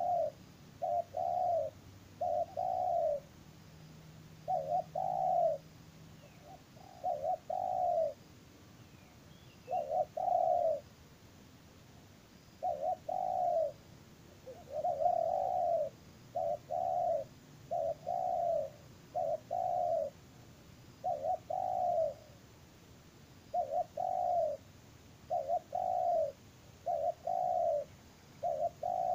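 Spotted dove (terkukur) cooing: low, arching coos in short phrases of two or three notes, repeated over and over every second or two.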